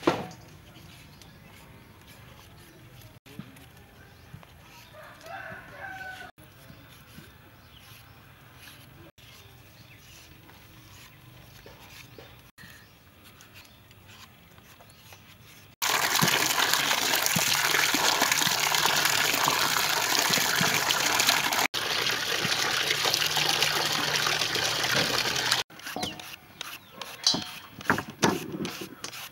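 A rooster crows once about five seconds in over a quiet rural background. From about sixteen to twenty-six seconds a loud, even rushing noise takes over, then quick irregular scraping strokes of a julienne peeler shredding green mango into a steel bowl.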